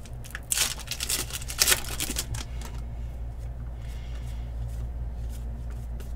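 Foil trading-card pack being torn open and crinkled, with sharp rips loudest in the first two seconds. After that comes quieter rustling as the cards are slid out and handled.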